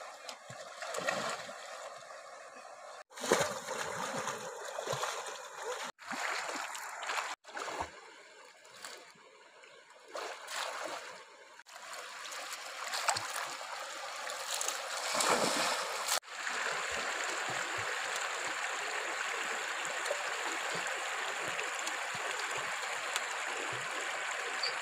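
Shallow river water: uneven splashing and sloshing from wading and from a basket of roots being swished about under the surface. Over the last several seconds it gives way to a steady rush of flowing river water.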